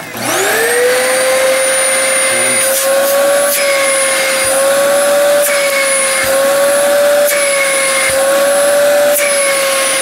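Hoover Sprint QuickVac upright vacuum cleaner's motor spinning up right at the start to a steady whine. Its pitch shifts a few times as airflow through the hose changes. The change in sound shows the hose, cleared of its blockage, now pulling good suction.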